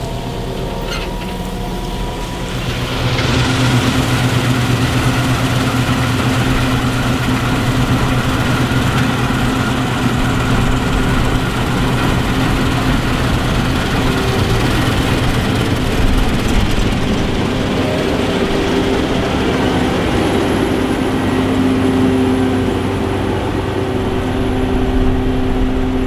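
Claas Lexion combine harvester running as it cuts winter barley, a steady engine and threshing drone. It grows louder about three seconds in as the machine comes close and drives past.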